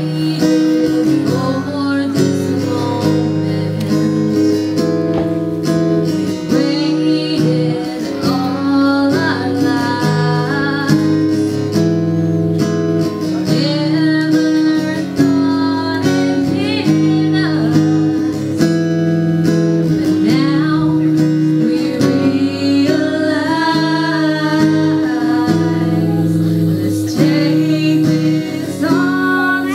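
Acoustic guitar played with chords while a woman sings a slow song.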